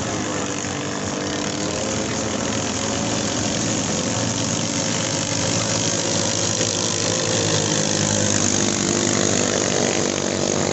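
Small-engine racing boats (ketinting) running flat out down the river, a steady, high-revving engine drone over the hiss of spray. It grows louder as the boats come closer.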